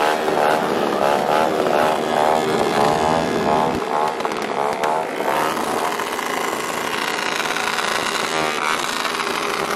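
Several two-stroke motorcycles with racing exhausts revving, their pitch rising and falling in quick blips. About five seconds in they settle into a steadier running drone.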